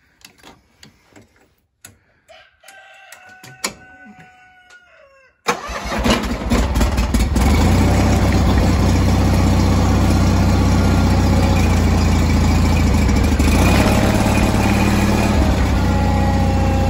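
John Deere garden tractor engine being started: it catches abruptly about five and a half seconds in, then settles into running steadily.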